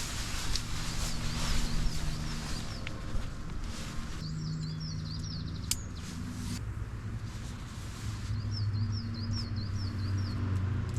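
Small birds singing runs of quick repeated high notes, in two bursts, over the steady low hum of a vehicle engine. A hiss in the first few seconds drops away about four seconds in.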